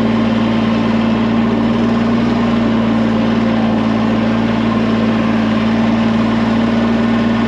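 Compact tractor engine running steadily while the tractor drives along, heard close from the operator's seat: a constant, unvarying drone with a strong steady hum.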